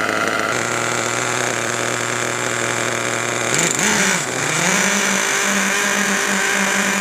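Twin two-stroke nitro engines of a HotBodies Lightning GTX2 RC truck running steadily at a low speed. About three and a half seconds in, the pitch dips briefly, then rises and holds steady at a higher engine speed.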